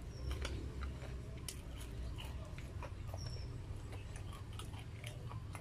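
Close-miked chewing of a mouthful of fried chicken, with many small irregular wet mouth clicks and smacks. A steady low hum runs underneath.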